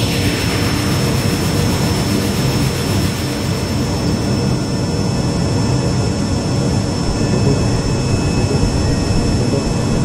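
Rolls-Royce Spey turbofan of a BAC One-Eleven heard from the cabin beside the rear-mounted engine, running steadily with a constant rush and a high whine held on one note while the aircraft rolls on the ground. A high whistle glides downward in the first second.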